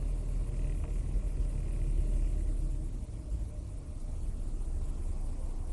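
Steady low road and engine rumble inside the cabin of a 1994 Mercury Topaz being driven.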